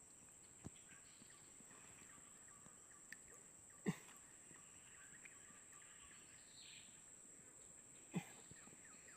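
Near silence: a faint steady high-pitched whine throughout, with brief low thumps about four and eight seconds in.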